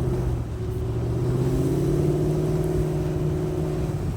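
2006 Toyota 4Runner's V8 engine running under load as the truck drives uphill, its pitch rising slightly about a second in and then holding steady.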